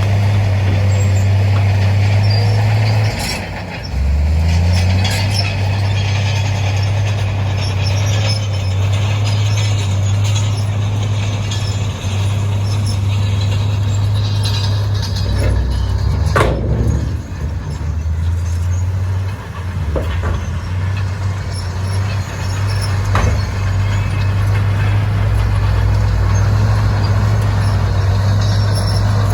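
Heavy diesel engine of earthmoving machinery running steadily, its pitch dipping briefly about three seconds in, with a few knocks and one loud clank a little past the middle.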